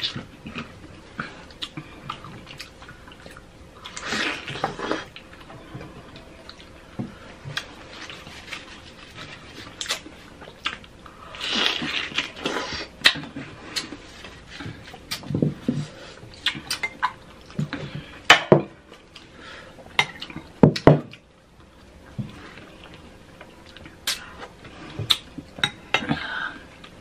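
Close-miked eating of juicy fresh fruit with whipped cream: wet chewing and mouth sounds, with a metal spoon clinking and scraping against a glass bowl. Sharp clicks are scattered throughout, and the two loudest come about 18 and 21 seconds in.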